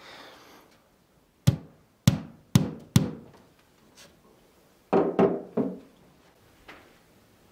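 Hammer knocks on an OSB board wall, tapping in the small nailed plastic clips that hold a coaxial cable. There are four sharp blows about half a second apart, then a quicker group of three or four about five seconds in.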